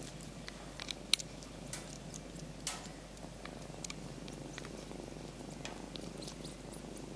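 A kitten purring steadily while it kneads and suckles at a dog's fur, with scattered small clicks and a sharper click about a second in.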